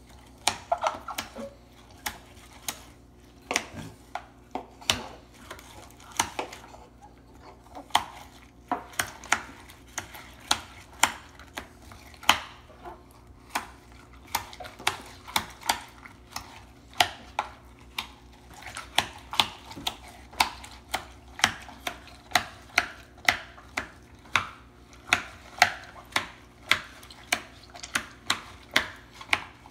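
Kitchen knife chopping tomatoes on a plastic cutting board: a string of sharp, irregular knocks, about one or two a second and sometimes in quick runs, over a faint steady hum.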